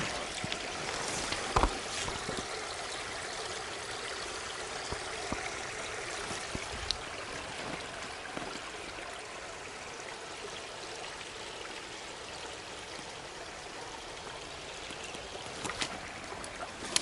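Stream water running steadily, with a single knock about one and a half seconds in and a couple of faint clicks near the end.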